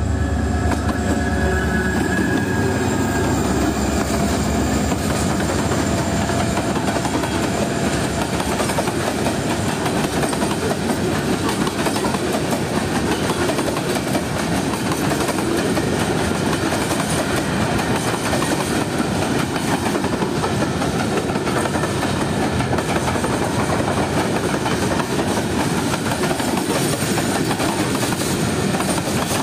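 Diesel freight locomotive passing close by, its engine loud in the first few seconds, then a long train of box wagons and container flatcars rolling past with a steady clatter of wheels on the rails.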